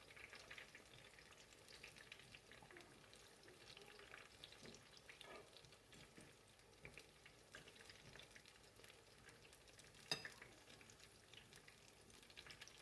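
Sliced plantain frying in hot oil: a faint, steady sizzle made of many small crackles, with one sharp knock about ten seconds in.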